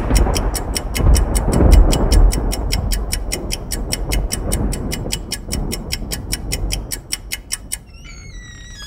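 Wind buffeting the phone's microphone, a low uneven rumble that eases off toward the end. Over it runs a fast, even ticking, about six ticks a second, and a few short chirping glides come in near the end.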